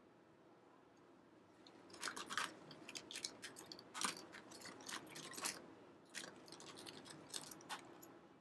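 Handling noise close to the microphone: an irregular run of short clicks and crackles starting about two seconds in, as small items are picked up and moved about.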